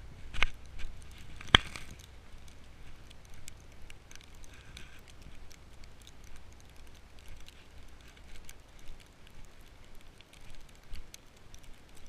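Footsteps crunching through fresh snow, heard as a steady scatter of small crunches and ticks, with two sharp knocks about half a second and a second and a half in.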